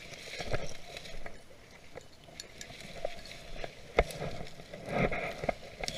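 Footsteps through snow and dry leaf litter, with brush rustling against clothing, in irregular bursts, and a sharp snap about four seconds in.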